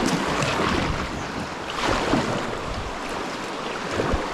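Whitewater river water rushing past a kayak, with a kayak paddle stroke splashing about every two seconds.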